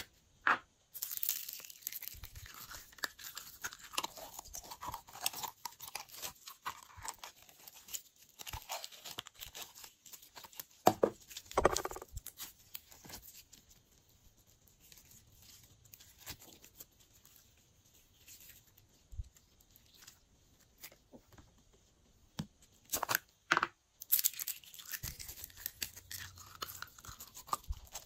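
Clear glitter slime being squeezed, stretched and folded by hand: a steady run of sticky clicks and crackles, louder near the middle and again near the end.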